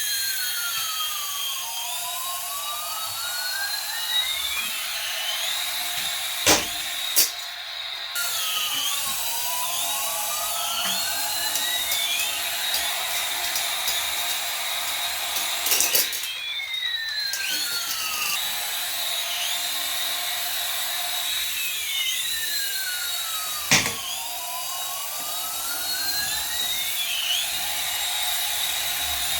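A battery-powered toy aircraft's electronic sound effect: a looping whistle that glides down and back up about every seven to eight seconds over a steady high hum, with a few sharp clicks.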